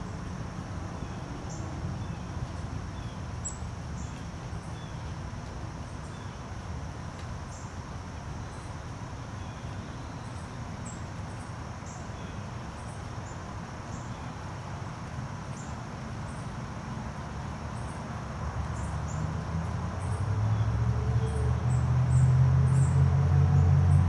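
Outdoor ambience with short, high-pitched bird chips repeating about once a second over a steady low rumble. About 20 seconds in, a low mechanical hum swells and grows louder.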